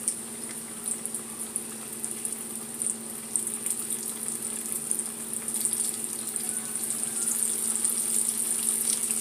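Breaded catfish nuggets frying in hot oil in a skillet: a steady sizzle with fine crackles. It grows gradually louder as more pieces go into the oil.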